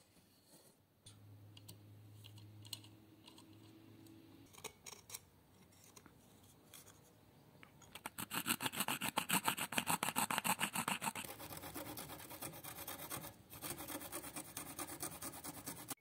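Faint scratching of a compass point on a thin wooden sheet, then about halfway through a hand fret saw cutting the wood in fast, rhythmic back-and-forth strokes, several a second, which is the loudest part.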